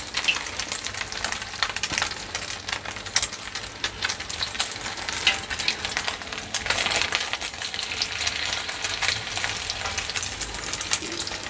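Egg omelette with sliced shallots sizzling in hot oil in a steel wok: a steady hiss with many small crackling pops.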